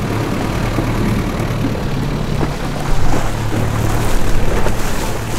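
Thai longtail boat's engine running steadily under way, a constant low drone, with wind and water rushing over it that grows louder about three seconds in.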